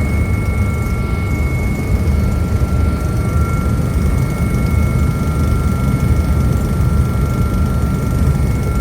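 Cabin noise of an AgustaWestland AW139 twin-turbine helicopter in cruise flight: a loud, steady rumble with two steady high-pitched tones running through it.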